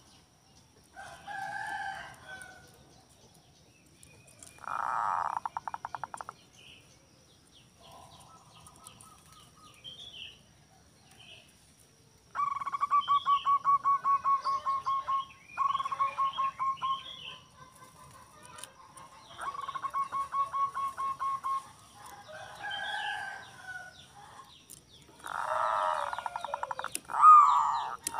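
Zebra doves (perkutut) cooing: repeated phrases of fast staccato notes around one pitch, each phrase lasting one to three seconds, with pauses in between.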